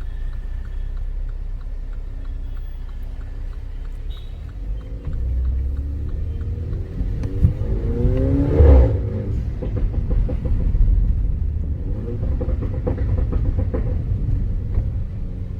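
Mini Cooper's engine and exhaust accelerating under throttle, the engine note rising to a loud peak about nine seconds in, with a sharp exhaust pop just before it. Afterwards it runs steadily with a few short, sharp crackles.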